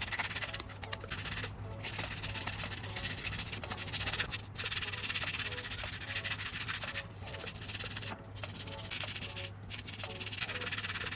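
Hand sanding: abrasive paper rubbing steadily over a hard surface, with about six short pauses between runs of strokes.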